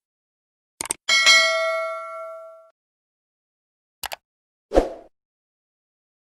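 A short click, then a bright bell ding that rings out and fades over about a second and a half. About three seconds later comes another click and then a brief thud, with dead silence between the sounds, as in edited-in sound effects.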